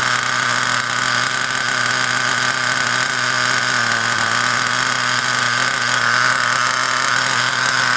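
Ansmann Virus 2.0 buggy's .28 BigBlock two-stroke nitro engine running steadily at a fast idle during its first-tank break-in, its mixture being richened so that it runs rich.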